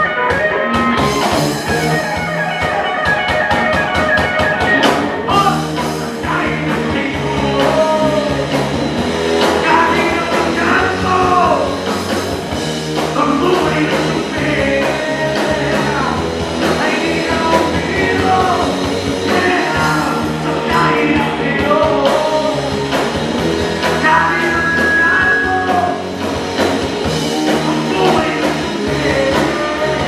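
Rock band playing live: electric guitars, bass and drums, with a male lead singer coming in about six seconds in and singing over the band.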